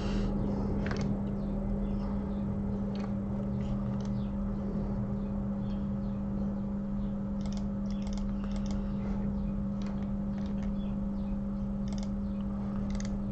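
Scattered computer keyboard and mouse clicks, in a few short runs, over a steady low hum.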